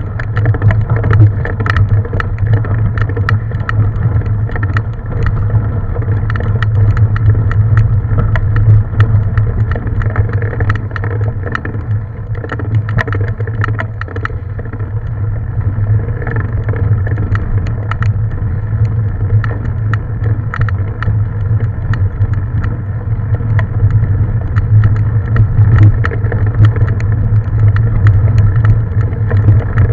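Mountain bike being ridden along a dirt trail: a steady low hum with frequent clicks and rattles from the bike running over rough ground.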